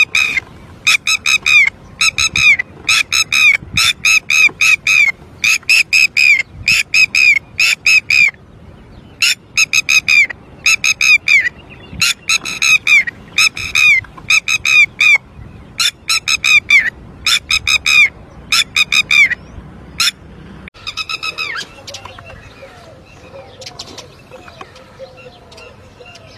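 Red-wattled lapwing giving loud alarm calls: repeated rapid bursts of several sharp notes each. This is the agitated calling of a parent bird that has lost its chick. The loud calling stops a few seconds before the end, leaving only fainter, lower chirps.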